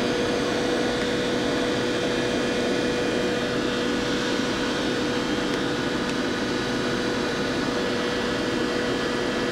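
Doosan Puma 400LB CNC lathe running its spindle in high range: a steady machine hum with a constant whining tone, unchanging throughout.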